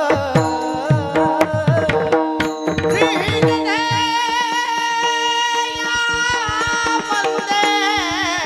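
Varkari kirtan singing: a male voice sings a long, high held note with quavering ornaments, over a steady drone, accompanied by mridang (pakhawaj) drumming whose bass strokes slide down in pitch, with sharp clicking strokes.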